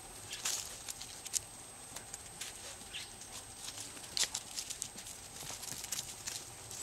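Norrbottenspets puppies' paws rustling and crackling through dry fallen leaves: irregular small crunches and clicks as they walk and sniff about.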